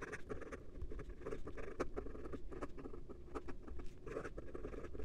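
Broad Bock nib of a fountain pen writing quickly in cursive on notebook paper: a faint, irregular run of small scratches and taps as the nib moves across the page and lifts between letters. The nib is a stiff broad with a good amount of feedback, hence the audible scratch.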